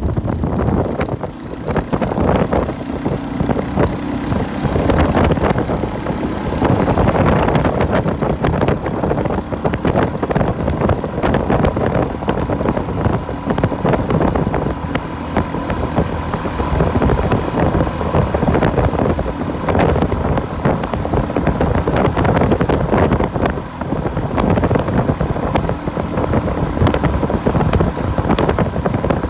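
Motorbike engine running steadily at speed, heard from on the moving bike, with wind rushing over the microphone.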